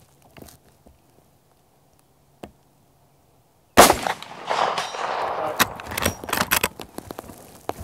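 One shot from a Henry All-Weather lever-action rifle in .44 Magnum, nearly four seconds in, its report echoing for over a second. Several sharp metallic clacks follow as the lever is worked to eject the spent case and chamber the next round.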